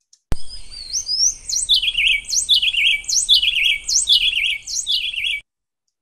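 Recorded canebrake wren duet played back over a video call. The adult pair and a juvenile female alternate high sweeping notes with lower answering notes at a steady pace, giving a clear staccato; the juvenile's part now coincides with her mother's. It starts with a click and cuts off suddenly near the end.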